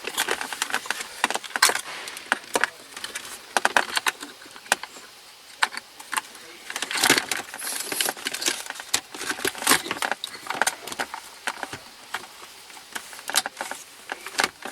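Irregular sharp clicks and small metallic rattles from hand work on car interior parts, with a denser jingle of clicks about seven seconds in.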